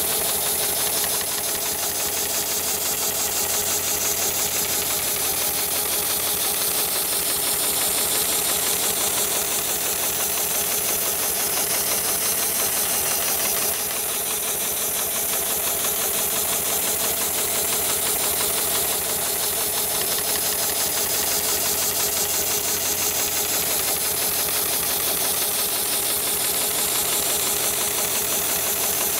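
Heavy-duty automated shoe-sole stitching machine running steadily, a rapid, even mechanical clatter over a low hum.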